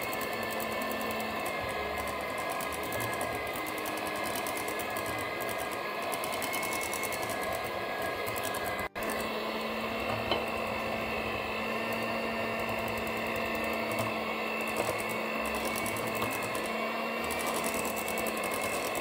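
Moulinex electric hand mixer running steadily, its beaters whipping a butter cream as custard is spooned in. The motor's whine drops out for an instant about nine seconds in.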